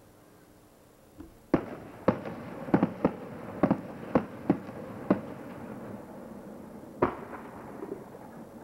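Aerial fireworks bursting: a quick run of about nine sharp bangs over three and a half seconds, then a single louder-spaced bang a couple of seconds later.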